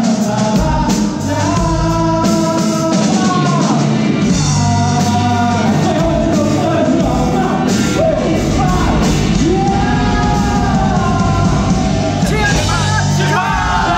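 Live rock band playing a song: several voices singing over guitars and a drum kit, loud and steady throughout.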